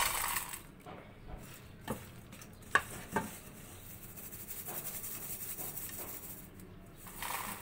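Wire mesh strainer scooping roasted peanuts out of hot salt in an iron kadhai: a grainy rustle of salt and nuts, with a few sharp knocks of the metal strainer about two to three seconds in. There is a rush of nuts and salt being tipped into a steel bowl at the start and again near the end.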